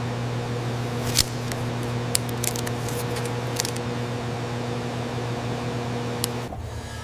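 A steady machine hum with a few sharp clicks and taps over it, cutting off suddenly about six and a half seconds in.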